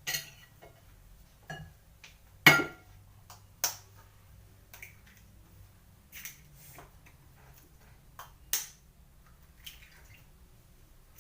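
Kitchen knife knocking on a chopping board while slicing onion: a dozen or so sharp, irregular knocks and clicks, the loudest about two and a half seconds in.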